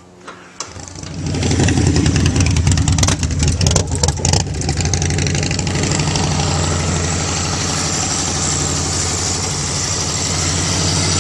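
Motorcycle engine starting about a second in, revved unevenly for a few seconds, then settling into a steady idle.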